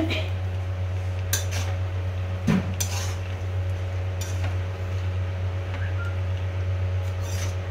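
Metal spatula scraping and knocking against an aluminium kadai as bow-tie pasta is tossed and stirred, several sharp scrapes spread through, over a steady low hum.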